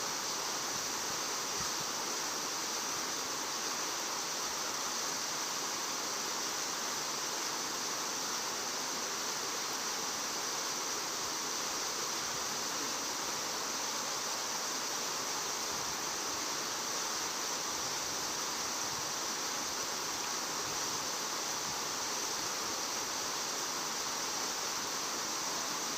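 Steady, unbroken rushing hiss with a steady high-pitched band on top, without distinct events.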